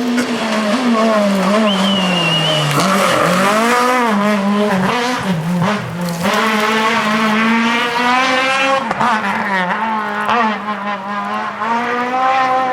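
Rally car engine at full effort, its pitch climbing and dropping again and again as the driver goes through the gears and lifts for corners. A short high squeal, likely the tyres, comes in about two seconds in.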